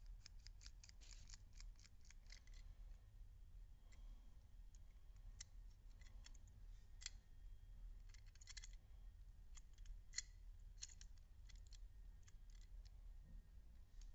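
Small plastic toy being handled: irregular light clicks and taps of plastic parts, thickest in the first couple of seconds and again past the middle, over a faint steady low hum.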